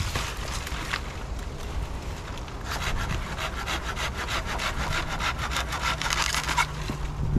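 A rapid run of rasping scrapes, about eight a second, lasting a few seconds from around three seconds in, over a steady low rumble.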